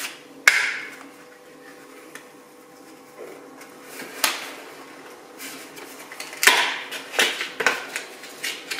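Packaging being handled and pulled off a small espresso accessory: a handful of short crackles and knocks, most of them bunched in the second half.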